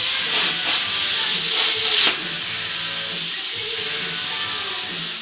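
Shyuan CUT40 air plasma cutter's torch cutting thin steel sheet at about 34 A: a loud steady hiss of the plasma arc and air jet, a little quieter after about two seconds.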